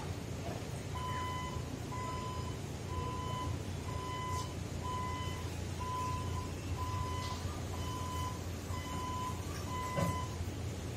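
Reach truck's warning alarm beeping about once a second, a single steady tone starting about a second in, over a low steady hum. A sharp click sounds near the end.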